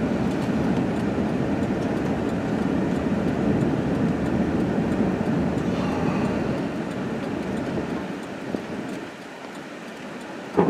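Strong storm wind buffeting the microphone: a steady, loud rushing noise that eases off about eight seconds in.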